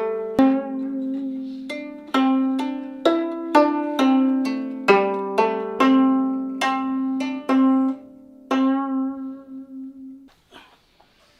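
Gayageum, the Korean plucked zither, playing a slow melody of single plucked notes that ring and fade, the last held notes wavering in pitch. The playing stops about ten seconds in, leaving a few faint handling noises.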